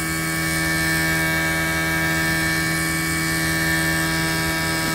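Fujitsu outdoor unit running with a steady humming noise: a strong low tone with a ladder of higher tones above it. The hum is an abnormal vibration noise that carries through the wall-mounted bracket into the house siding.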